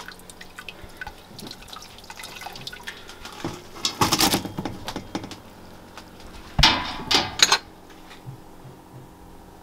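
Strained tea dripping from a mesh strainer full of steeped dandelion heads, then the wet mass of dandelions tipped out of the strainer into a stainless steel pot: two loud bursts of wet plopping and clatter about four and seven seconds in, the second starting with a sharp knock.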